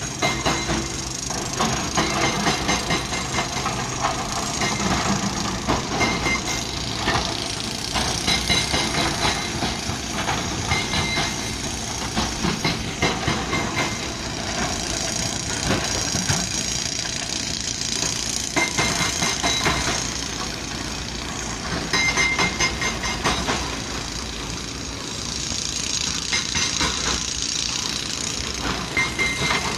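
Diesel excavator engines running under load, with clusters of rapid knocks and clatter every few seconds from rock being worked.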